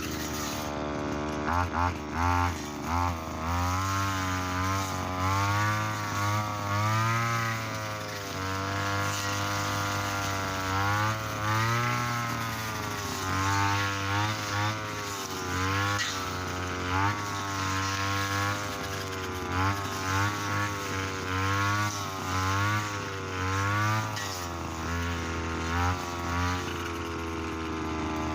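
Mitsuyama brush cutter engine running under load as its 2.4 mm trimmer line cuts thick, tough field grass, the engine pitch repeatedly sagging and picking back up.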